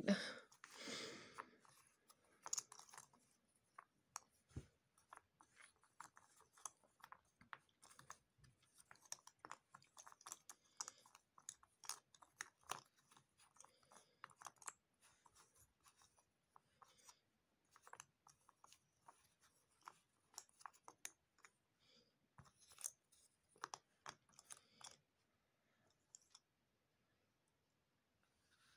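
Cardboard jigsaw puzzle pieces being picked up and shuffled by hand: a run of faint, irregular little clicks and rustles that thins out near the end.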